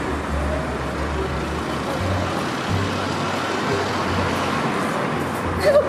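Street traffic noise, with a steady low hum from vehicles.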